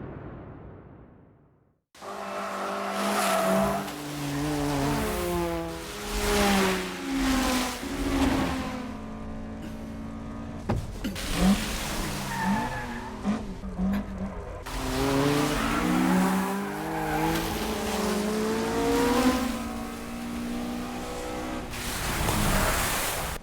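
Racing car engines revving, their pitch rising and falling again and again, with tyres squealing. The sound starts after a brief silence about two seconds in.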